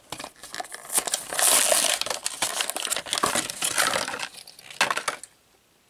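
Clear plastic blister packaging crinkling and tearing as a die-cast toy car is worked out of its card-backed pack; the crackling stops about five seconds in.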